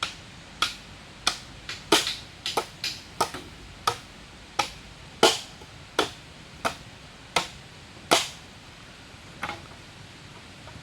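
Repeated sharp blows of a hand tool on wood, about eighteen strikes at a working pace of one every half second or so, each with a short ring; the last one is fainter. A steady hiss of rain runs underneath.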